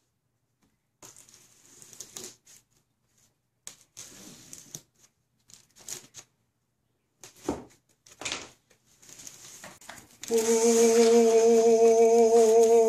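A utility knife slitting packing tape on a cardboard box, in short scratchy strokes, and the box flaps rustling as they are opened. About ten seconds in, a loud, steady held note with a slight waver begins and lasts about three seconds.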